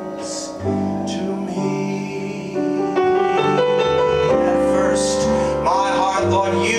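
Solo piano playing slow, held jazz-ballad chords, with a man's voice starting to sing over it near the end.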